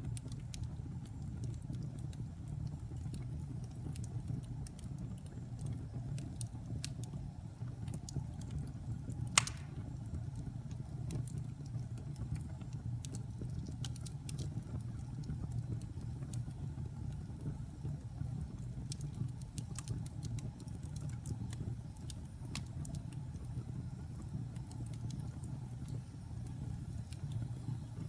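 Wood fire burning in a fireplace: a steady low rumble of flame with scattered crackles throughout, and one loud pop about nine seconds in.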